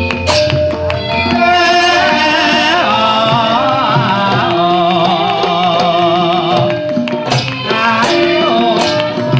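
Javanese gamelan music: sustained metallophone tones and drum strokes, with a woman singing a long wavering, ornamented vocal line in the middle. The seated female singers clap their hands in time.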